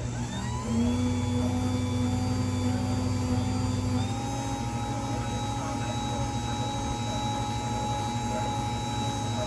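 LiftMaster DC-motor garage door opener running: the motor ramps up smoothly about half a second in, then runs with a steady hum and whine whose pitch steps up slightly about four seconds in.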